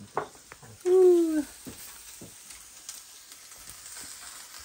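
A person's short 'hoo' sound about a second in, falling slightly in pitch, with a few light clicks and a steady faint hiss.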